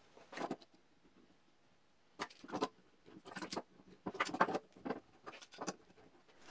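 Metal bar clamps clattering and clicking in several short bursts as they are set on a glued stack of plywood pieces and their jaws slid and tightened down, with the wooden pieces knocking together.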